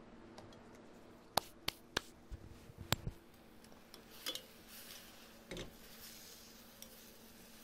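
Utensil ticking and tapping against a stainless steel pan: a few sharp ticks in the first three seconds. Then softer stirring sounds as sliced green Cubanelle peppers are turned in the pan.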